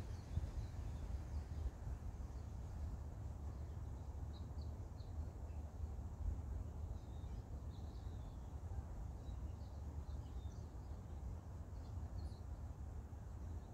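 Wind rumbling on the microphone, with faint, short, high bird chips scattered through the middle and later part.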